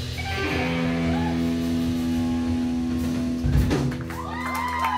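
A rock band's electric guitars and bass hold one sustained final chord, ringing out, with a low thump about three and a half seconds in. Near the end the audience starts whooping and cheering over the fading chord.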